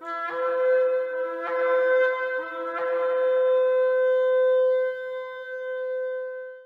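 Shofar sounding a long blast: a held horn note that swells with fresh attacks about a second and a quarter apart, then sustains and stops just before the end.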